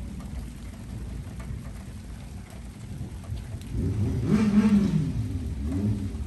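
Steady rain during a night thunderstorm, with a louder low rumble swelling up about four seconds in, peaking and then easing off.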